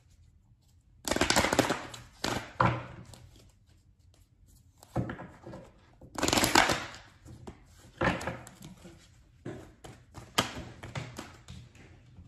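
Tarot cards being shuffled and handled: a string of rustling, riffling bursts, the loudest a little after the start and again about halfway through.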